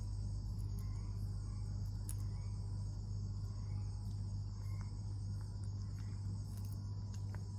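Night insects trilling in a steady high-pitched chorus over a steady low hum, with a few faint scattered clicks.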